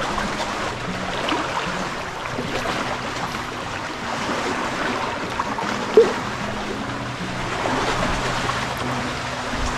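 Shallow sea water lapping and sloshing close to the microphone, with a steady sparkle of small splashes and one louder plop about six seconds in.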